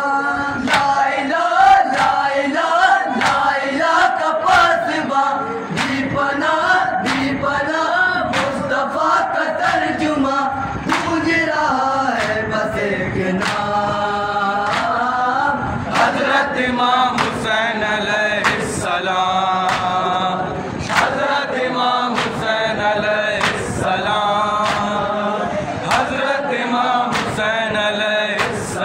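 A group of male voices chanting a noha, an Urdu lament for Imam Hussain, in unison. It is kept in time by a steady beat of sharp slaps from chest-beating (matam).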